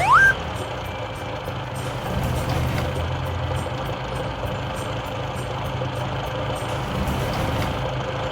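Two quick rising whistles right at the start, then a cartoon truck engine sound effect running steadily.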